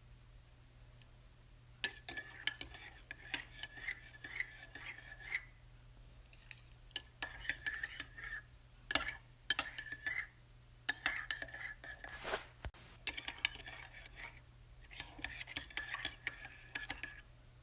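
A spoon stirring a drink, clinking rapidly against the sides of the cup in several bouts of a second or few, with short pauses between them.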